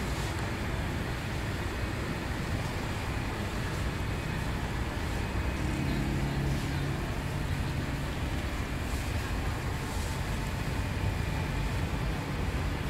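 Steady rumble and hiss of bakery machinery running, with a low droning hum that comes in about halfway through for a few seconds.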